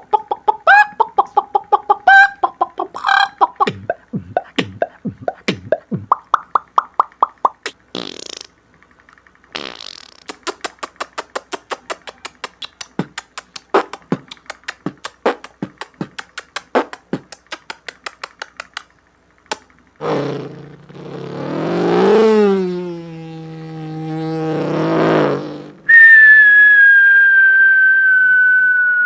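Beatboxer making vocal sound effects with mouth and voice: short pitched blips and long runs of rapid clicks and ticks, then a low buzzing tone that swoops up and down, and near the end a long high whistle-like tone that slowly falls.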